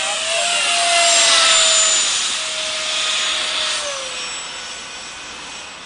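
Battery-electric motor of a radio-controlled model Saab Viggen jet flying past at full power: a loud whining rush whose pitch slides down as it goes by, loudest a second or two in and fading as it climbs away.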